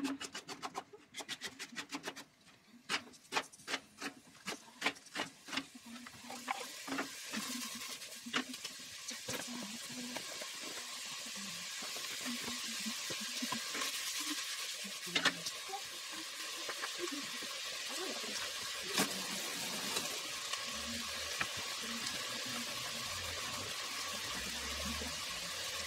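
Knife chopping a vegetable on a cutting board in quick, even strokes, about three a second. After about six seconds it gives way to a steady sizzle of vegetables frying in a stainless steel pot, with a few light knocks.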